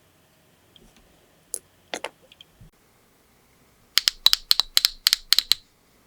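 Sharp clicks and taps of small hard objects being handled during nail art: a few separate taps, then a quick run of about ten clicks, roughly six a second, about two-thirds of the way through.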